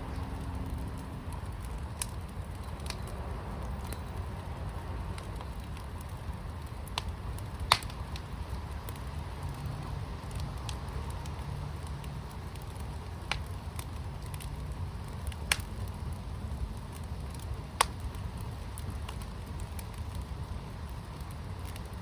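Firepit fire crackling: a steady low rush with sharp pops every few seconds, the loudest about eight seconds in.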